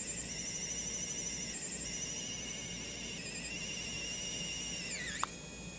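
Small filament-feed motor of a 7TECH 3D pen running to eject the filament, with a high-pitched warbling whine. The whine shifts pitch a few times, then glides down and stops near the end.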